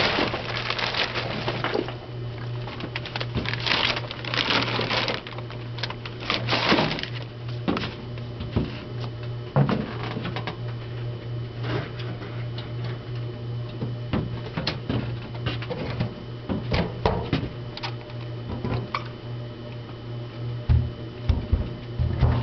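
Pine chunks and sawmill slab pieces pouring from a bag and clattering into the metal hopper of a wood gasifier in several bursts, then a few scattered knocks, over the steady hum of the gasifier's electric blower.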